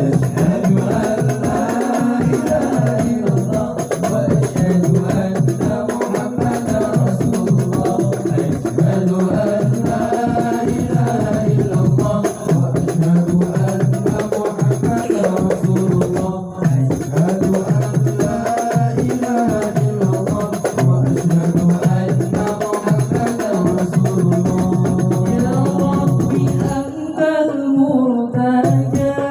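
Sholawat devotional singing with tambourine-like frame-drum percussion, continuous and loud.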